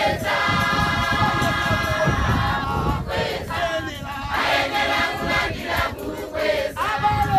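Large crowd of women and children singing a gospel song together, many voices in sustained, gliding notes, loud and steady.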